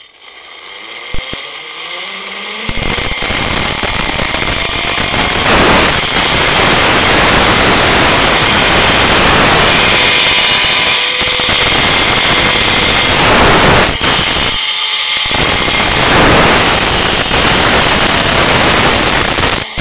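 Zip-line trolley pulley running along the steel cable. Over the first few seconds its whine rises in pitch as it picks up speed, then it settles into a loud, steady whir mixed with heavy wind rush on the microphone.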